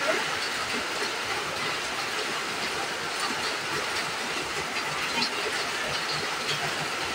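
Steady hiss of heavy rain falling, with a few faint clicks of chopsticks against a bowl.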